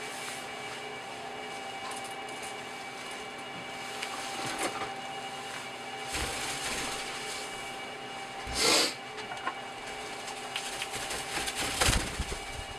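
Hands working a plastic speaker enclosure and driver apart: soft scraping and rubbing, one louder scrape about two-thirds through, and a few sharp knocks near the end.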